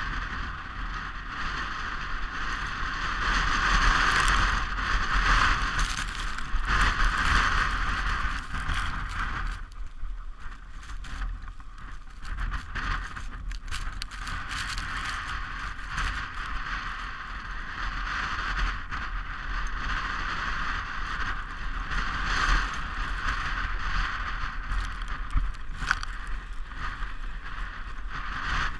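Steel runners of a sport toboggan scraping and hissing over the packed snow of a toboggan run. The noise is loudest about four to eight seconds in and eases off for a few seconds around the middle.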